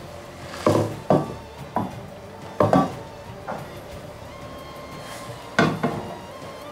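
Knocks and clinks of cookware at a gas hob: a frying pan and a small glass being handled, about seven sharp hits with short ringing. The loudest come about a second in, near the middle and near the end.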